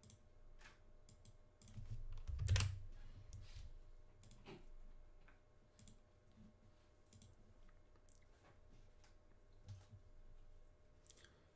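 Faint computer mouse clicks and keyboard taps, scattered and irregular, with one louder click and a low thump about two and a half seconds in.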